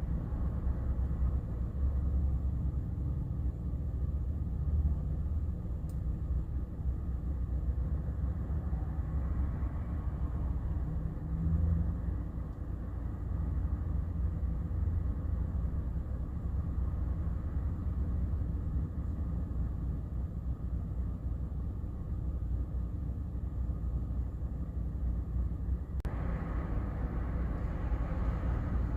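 Strong wind buffeting the microphone, a low, gusting rumble that rises and falls, with a little more hiss from near the end.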